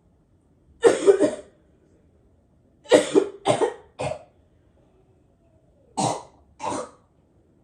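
A person coughing in fits: a short burst about a second in, three or four quick coughs around three to four seconds in, and two more near the end. The coughing is staged, put on for a fake coughing-up-blood prank.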